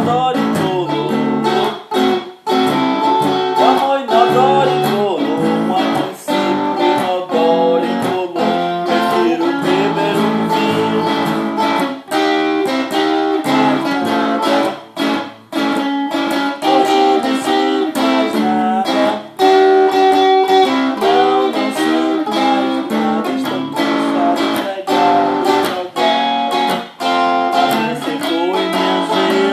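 Tonante 1970s Brazilian electric guitar, cedar body with Wilkinson pickups, playing a blues line of quick single notes with bent notes that glide up in pitch.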